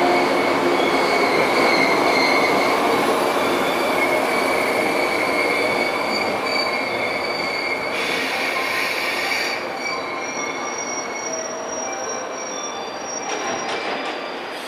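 JR West 117-series electric train running along the platform with a steady high-pitched wheel squeal over the rolling rumble. The squeal shifts to a higher tone about ten seconds in as the sound gradually fades.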